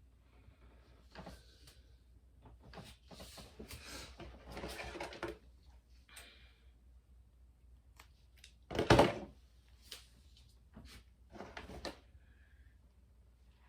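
Handling noises: a string of light knocks and rustles, with one loud thunk about nine seconds in.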